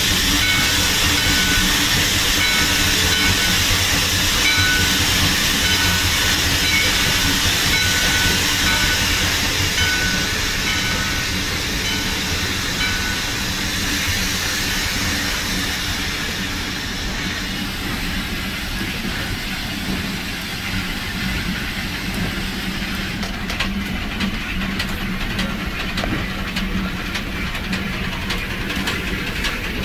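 Shay geared steam locomotive running, heard from on board: steady steam hiss and running noise. A faint tone repeats about once a second for the first dozen seconds, and a quick run of clicks and clatter comes in the last several seconds.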